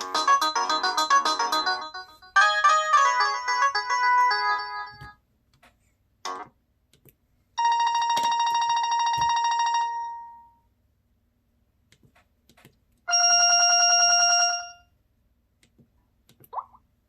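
LG AX490 flip phone's speaker playing a run of short ringtone previews. Two brief electronic melodies come in the first five seconds, then two single buzzy held tones of about two seconds each, with faint key clicks in the gaps between.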